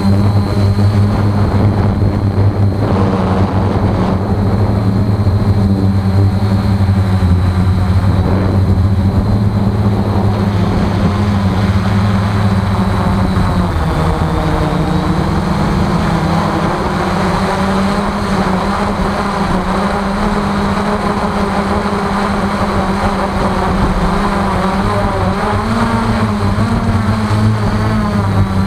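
Electric motors and propellers of a radio-controlled aircraft in flight, heard from a camera mounted on it: a steady loud hum with a faint high whine. The pitch dips briefly about halfway through and rises a little near the end as the throttle changes.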